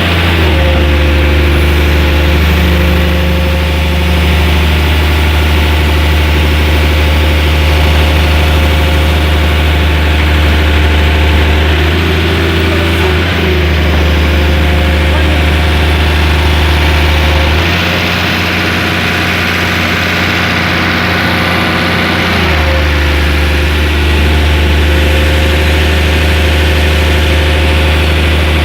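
Heavy machine's engine running steadily under work, its note stepping up and down a few times as the load on it changes while it lifts.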